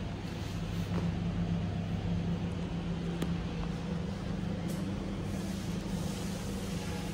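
Steady low machine hum with fan noise from a fiber laser welding machine's cabinet running, with a couple of faint clicks.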